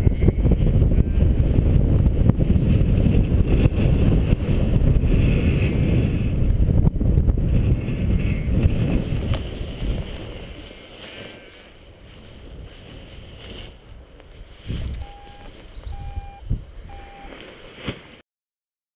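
Wind buffeting the microphone as a paraglider makes its final low glide and lands, dying away about ten seconds in after touchdown. Near the end come three short electronic beeps about a second apart, then the sound cuts off suddenly.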